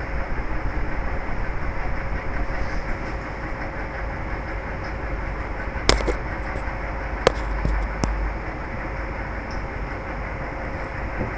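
Steady low rumble and hiss of mechanical background noise, with sharp clicks about six seconds in and again a little past seven seconds.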